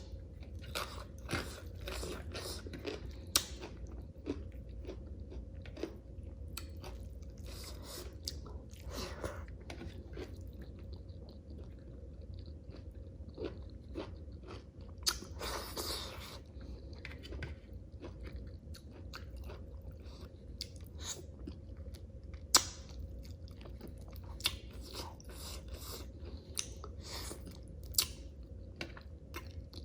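Close-miked chewing of crunchy raw cucumber salad: a steady run of wet, crisp crunches and bites, with a few sharper snaps along the way.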